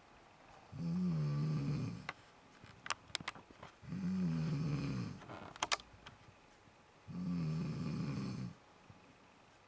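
Snoring: three long, pitched snores, one about every three seconds, with quiet breaths between them. A few sharp clicks fall between the first and second snores and again just before the third.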